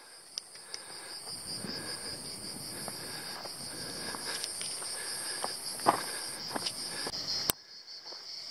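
Insects in the brush keep up a steady, high-pitched shrill buzz, with a still higher buzz that cuts out near the end. Footsteps sound on a dirt path, each step a scattered short crunch.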